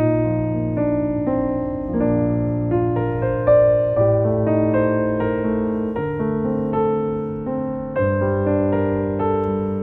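Gentle background piano music: held chords with a slow bass line changing about every two seconds.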